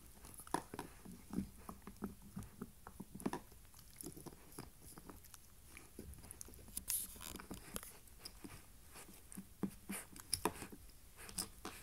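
Corgi puppy gnawing a deer antler: irregular clicks and scrapes of teeth on the hard antler, with a quick run of louder clicks about seven seconds in.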